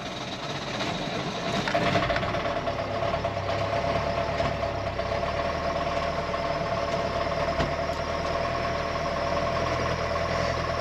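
A boat's diesel engine starting up after fuel was added to the tank, settling into a steady run about two seconds in and sounding good, which suggests that running short of fuel caused it to stall.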